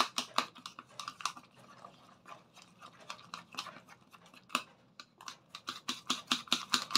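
Eggs and chopped garlic chives being beaten by hand in a small stainless steel cup, the utensil clicking rapidly against the metal sides. The strokes are sparser and quieter through the middle, then come faster and louder over the last couple of seconds.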